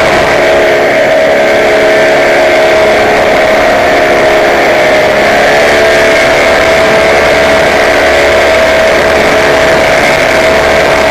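Small aircraft engine heard from on board in flight, running steadily at a held pitch over a rush of air noise, its note shifting up slightly about five seconds in.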